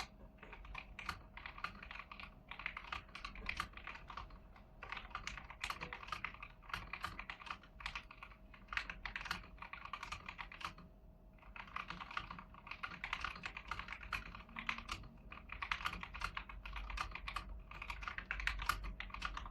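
Typing on an AIGO A100 mechanical keyboard with stock yellow switches: rapid, dense runs of key clicks with brief pauses between bursts.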